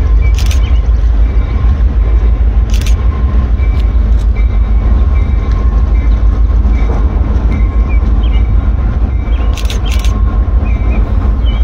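Diesel locomotive of a freight train running out of sight, heard as a steady low rumble with a faint steady whine over it. A few short high chirps and brief clicks sound through it.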